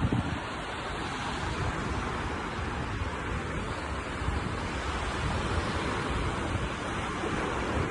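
Steady hiss of sea surf washing onto a beach, with wind rumbling on the microphone.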